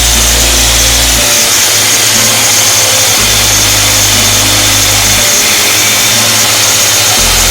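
Background music with a loud hissy texture and a low bass note that changes about every two seconds.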